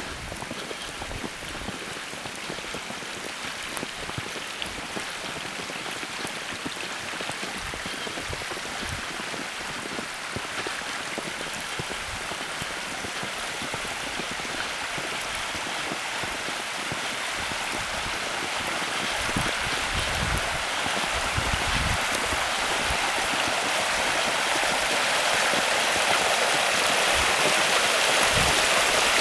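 Steady rushing of running water, growing steadily louder.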